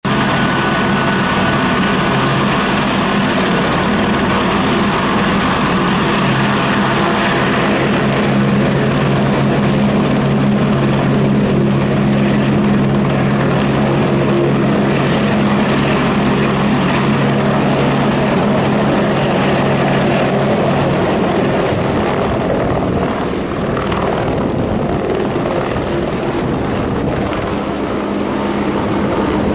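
Airbus AS350 (AStar) single-engine helicopter taking off, its turbine and main rotor running loud and steady as it lifts off the pad. About 21 seconds in, the steady low rotor tones break up and the sound wavers as it climbs away.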